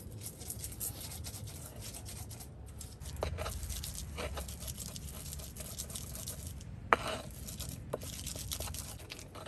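Stone pestle grinding spices (shallots, garlic, turmeric) into a paste in a stone mortar: a steady gritty scraping and rubbing of stone on stone, with a few sharp clicks along the way.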